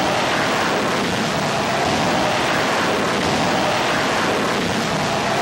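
Stunt rocket car's rocket motor firing at launch: a loud, steady rushing blast that starts abruptly just before and holds unbroken throughout.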